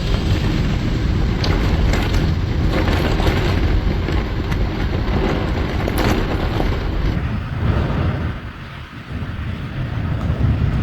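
Floodwater rushing through a street, with heavy wind buffeting the microphone; the level drops briefly about eight seconds in, then comes back.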